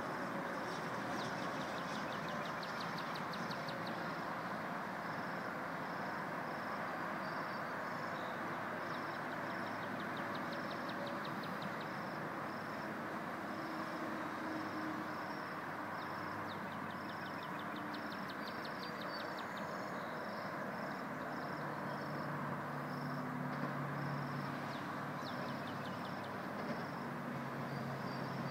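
Birds chirping over a steady distant rumble, one repeating a short high note about twice a second, with several quick trills; in the last third a low drone grows as a GO Transit commuter train approaches, cab car leading with the diesel locomotive pushing at the rear.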